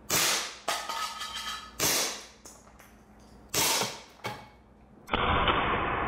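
Three shots from an Umarex Glock 17 Gen4 CO2 blowback BB pistol, each a sharp pop about two seconds apart and each followed by a fainter knock. Music comes in about five seconds in.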